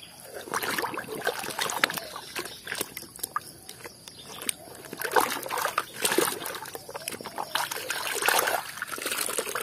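Muddy water sloshing and splashing in a plastic basin in irregular bursts as a small plastic toy bus is scrubbed by hand under the water.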